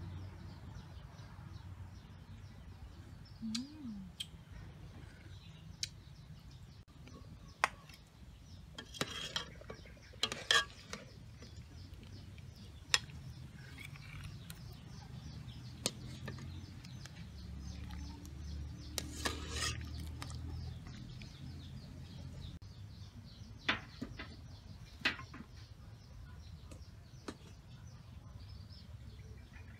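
Metal ladle clinking against an aluminium pot and a ceramic bowl as soup is ladled out, with scattered sharp clinks and a few short splashing pours of broth. Birds chirp in the background.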